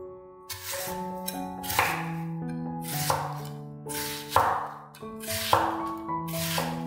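A knife chopping vegetables on a cutting board: sharp, crisp cuts starting about half a second in, coming unevenly about one or two a second, over background piano music.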